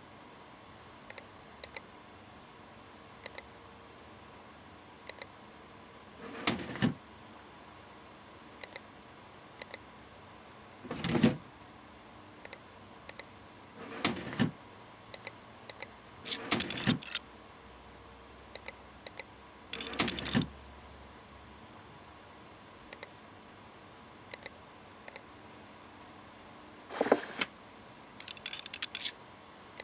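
Scattered sharp clicks and about half a dozen short scraping or rustling handling noises, each under a second, with a quick run of clicks near the end, over a faint steady hum.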